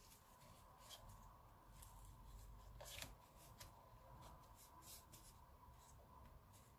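Faint rustling of white cardstock and a tape strip being handled and peeled by hand, with scattered light clicks, the most distinct about three seconds in.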